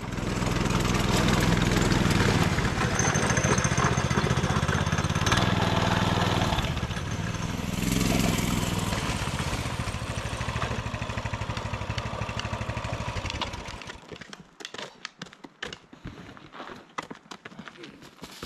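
Small engines of a mini bike and a go-kart running as they ride in over gravel, then shutting off about fourteen seconds in. After that, footsteps on gravel and clunks of plastic bins and gear being handled.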